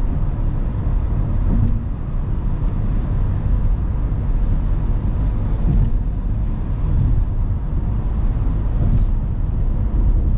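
Car driving, heard from inside the cabin: a steady low rumble of road and tyre noise with engine drone.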